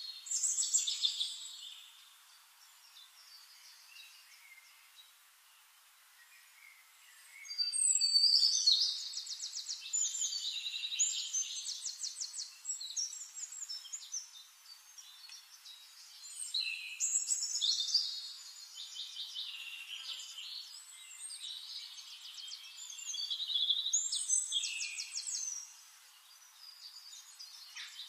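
Songbirds singing: rapid trills and chirps in loud bursts a couple of seconds long, recurring every several seconds, with quieter chirping in between. The sound is thin, with no low end.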